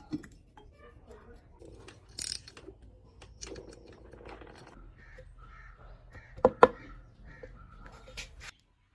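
Hand tools clicking and knocking on the alloy cylinder head of a Yamaha RX100 two-stroke engine as its nuts are run down with a socket tool, with one sharp metallic knock about six and a half seconds in. A bird calls repeatedly in short harsh calls through the second half.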